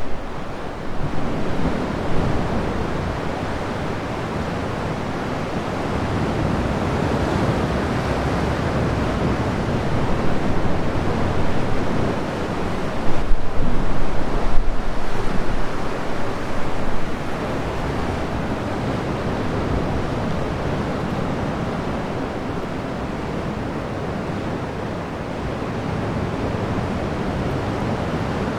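Sea waves washing into a sea cave: a steady rush of surf, swelling into a louder surge about halfway through.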